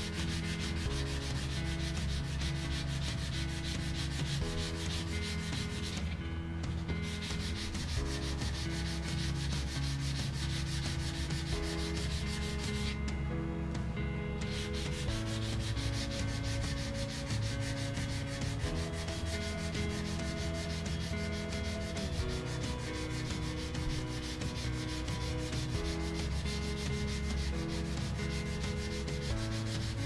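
Fine-grit sandpaper rubbed by hand in quick, continuous strokes over the wooden end of a cane, thinning it so a metal ferrule will fit. The strokes stop briefly twice, about six and thirteen seconds in.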